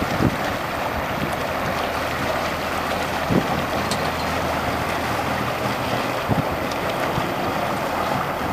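Motor lifeboat's engine running steadily as the boat passes under way, with wind buffeting the microphone in a few brief low thumps.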